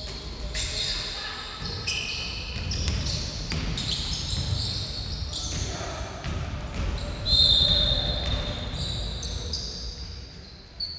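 Basketball game sounds in a gym: sneakers squeaking on the hardwood floor, the ball bouncing, running footsteps and players' voices echoing in the hall. The loudest sound is a louder, held high squeal lasting about a second, about seven seconds in.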